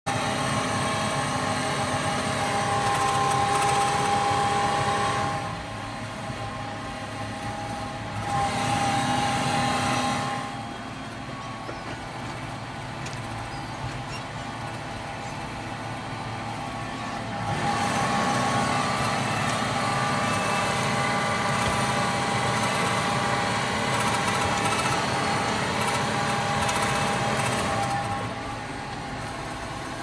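John Deere 6155R tractor running under load while pulling a plough, heard from inside the cab: a steady engine and drivetrain drone with a whine on top. It grows louder and quieter several times as the work goes on.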